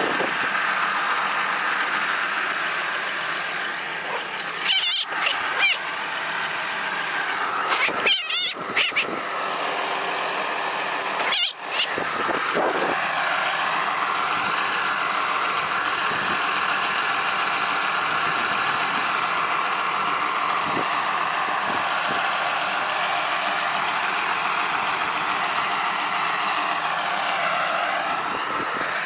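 Farm tractor engine running steadily close by. Three short, loud, shrill squeals cut in about 5, 8 and 11 seconds in.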